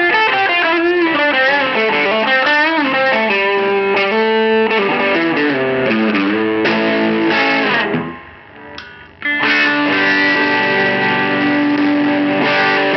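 Electric guitar played through an ALV Tubelyzer overdrive pedal, a Tube Screamer-style clone, with the bridge humbucker split to single coil. It plays a lead line with bent notes, goes quiet briefly about eight seconds in, then a sustained overdriven chord rings out.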